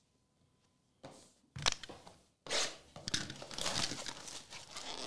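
Plastic shrink wrap being torn and crinkled off a trading-card blaster box: a couple of short taps and scrapes, then steady crinkling from about two and a half seconds in.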